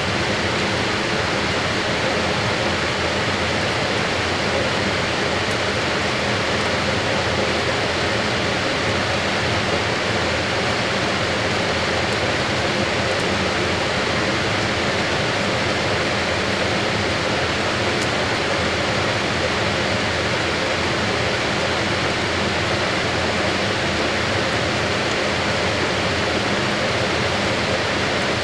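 Fisher & Paykel AquaSmart top-load washer spinning its wash basket: a steady rushing noise with a faint hum running under it.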